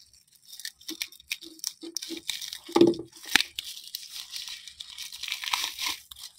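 Plastic wrapping crinkling and tearing as a new linear sliding bearing is unwrapped by hand, in a run of quick crackles with a louder crack about three seconds in.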